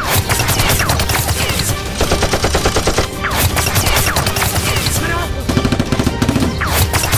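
Rapid machine-gun-style gunfire sound effects in continuous volleys, with short falling whistles over them, dubbed over foam toy blasters being fired.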